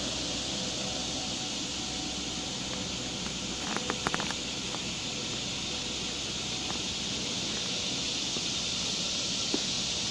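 Steady high-pitched chorus of late-summer insects in the woods, an even shrill hiss that doesn't change. A short cluster of light clicks comes about four seconds in.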